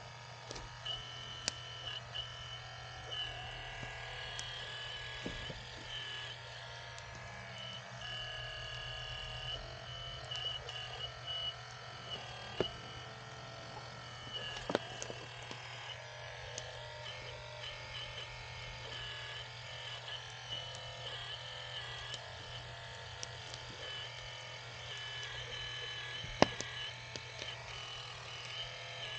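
Electric pump motor of an RC hydraulic excavator whining steadily, its tones dipping and shifting as the hydraulics are worked, with scattered sharp clicks and knocks, the loudest near the end.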